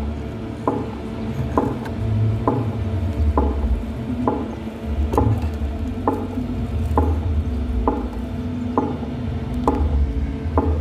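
Stacked outdoor loudspeakers of a large sound system playing a slow beat during a sound check: a sharp hit about once a second over loud, dense bass.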